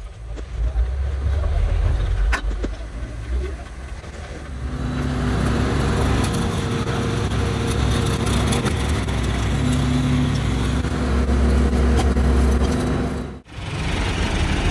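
Diesel engine of a loader running steadily with a deep rumble, its note shifting a little as it works under load. A few sharp knocks come in the first seconds, and the sound drops out for a moment near the end before heavy engine noise resumes.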